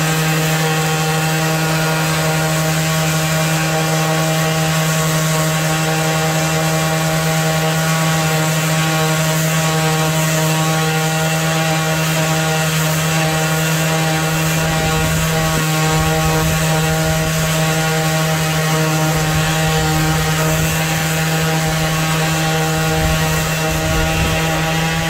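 Craftsman 20V cordless random-orbit palm sander running at a steady speed with its pad pressed against a wooden cutting board, giving a constant motor hum with the scratch of sandpaper on wood.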